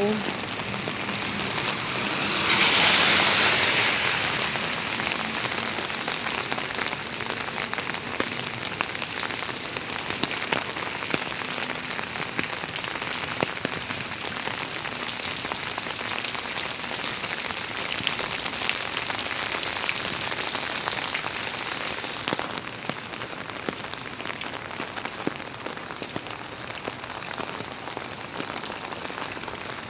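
Heavy rain falling steadily, a dense hiss full of small sharp drop ticks. A louder hiss swells up for a second or two about three seconds in.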